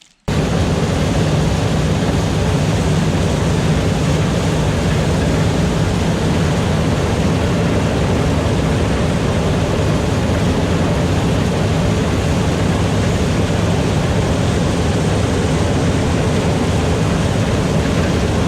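Tractor engine running steadily under load, a continuous low drone that cuts in abruptly at the start.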